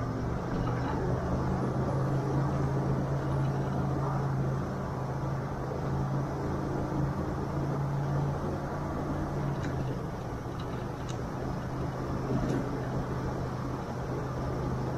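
Engine of the following off-road vehicle running at low, steady speed, a steady low drone, with tyres rumbling over a rocky dirt track. A few brief knocks come near the end.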